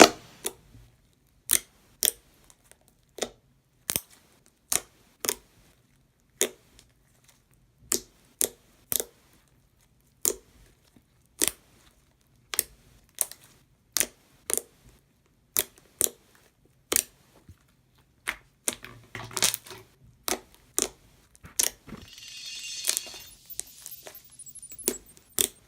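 Homemade clicky borax slime being pressed and folded by hand, making sharp clicking pops about one or two a second. Near the end a few seconds of softer crackling hiss as the slime is worked more steadily.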